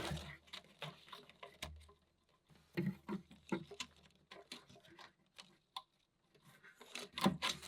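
Scattered light clicks and rustling of hands handling plant material on wood, irregular and soft, a little busier about three seconds in and again near the end.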